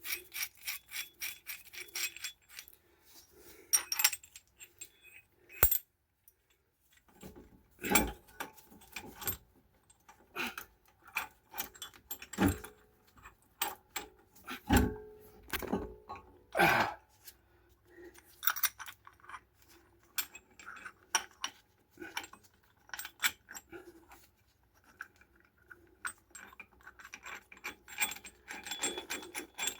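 Irregular metallic clicks, clinks and scraping from hand tools working a brake caliper piston tool to push the caliper piston back in, with several louder knocks in the middle.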